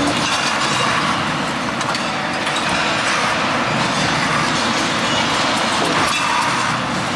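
Steady mechanical din of an automated brake-shoe welding line with a copper wheel electrode and robotic loader running, with light clicks scattered through it.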